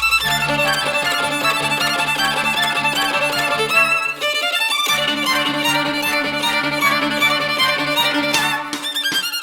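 Background music led by violin, with sustained low held notes under a moving melody.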